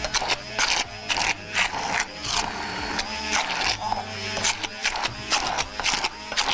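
Hand-held immersion blender running in a glass bowl, its motor humming steadily as it purées feta, olives, garlic and onion into a thick paste. Frequent sharp knocks and clatter, two or three a second, come as the blending head works through the mixture against the bowl.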